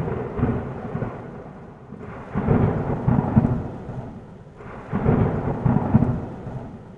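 Thunderstorm: a peal of thunder dies away over the first two seconds. Two more low rolls of thunder swell about two and a half and five seconds in, each fading out, over steady rain.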